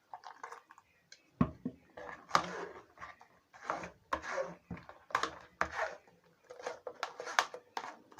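Spoon scraping and pressing blended fruit pulp through a kitchen sieve to strain the juice: one knock, then a run of short scrapes at about two a second.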